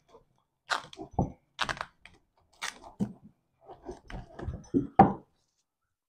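A Toyota Prius Gen 3 inverter wiring harness being handled and pulled apart, its plastic connectors, brackets and sheathing giving irregular crackles and soft knocks.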